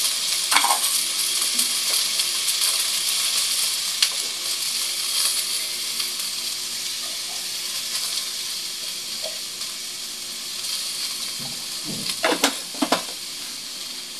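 Mussels sautéing in a stainless steel pot, a steady sizzle that slowly fades, with a few sharp clinks against the pot and a cluster of louder ones near the end.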